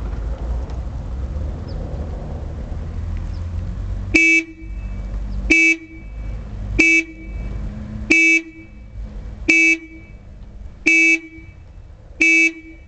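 First-generation Acura Legend coupe's car horn sounding seven short, evenly spaced honks, about one every second and a half, starting about four seconds in: a seven-honk salute.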